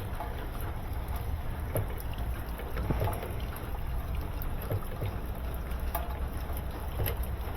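Steady rain falling, a continuous low rumbling wash of noise with scattered small ticks of drops.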